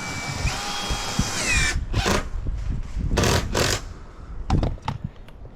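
Cordless drill driving a screw: its motor whines steadily, steps up in pitch about half a second in, then winds down, followed by a few short noisy bursts.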